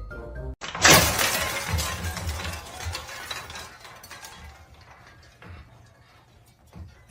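A sudden loud crash of something shattering about a second in, followed by breaking and clinking that tails off over the next few seconds.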